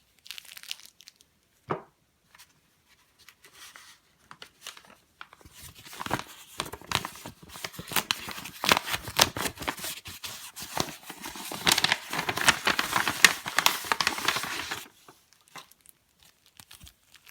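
Small parts packaging being handled and torn open: a few light clicks and rustles, then about nine seconds of steady crinkling and tearing, loudest near the end before it stops.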